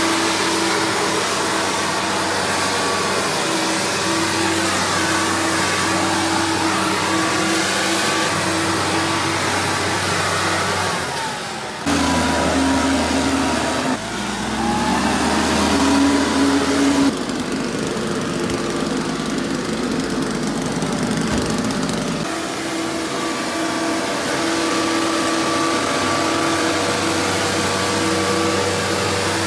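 Solo backpack mist blower's small two-stroke engine running at high speed, blowing insecticide fog from its wand: a steady engine drone that jumps abruptly in pitch and level a few times.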